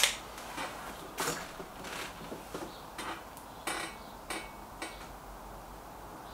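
A handful of soft, irregularly spaced clicks and knocks as an SMK XS36 air rifle is handled and brought up to aim, just before the shot.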